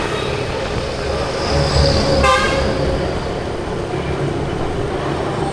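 Street traffic with engines running and a low rumble, and a short vehicle horn toot a little over two seconds in.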